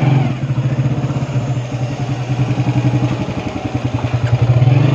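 Motorcycle engine running steadily as the bike is ridden, getting louder towards the end.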